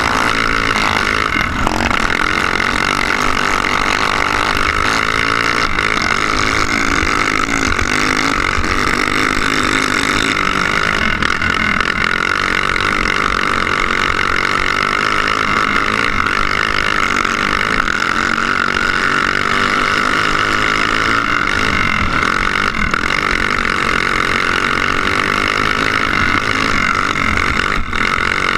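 Go-kart engine heard from onboard the kart, running loud and steady, its pitch rising and falling over and over as the throttle is opened and eased through the corners.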